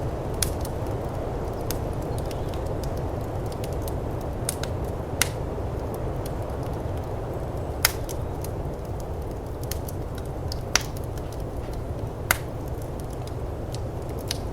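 Firepit wood fire crackling, with scattered sharp pops, a handful of them loud, over a steady low rush of snowstorm wind.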